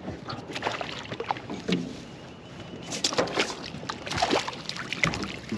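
Irregular knocks and clatter on a small aluminum boat, thickest in the second half, as a landing net is taken up to land a hooked crappie.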